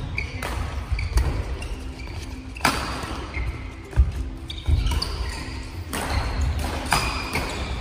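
Badminton doubles rally: about seven sharp racket strikes on the shuttlecock, a second or so apart, with shoes squeaking and feet thudding on the wooden court floor.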